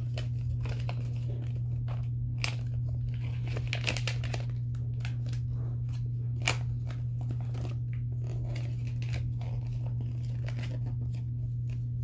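Small plastic toy wrapper being crinkled and torn open by hand in irregular crackles, with one sharper snap about six and a half seconds in. A steady low hum runs underneath.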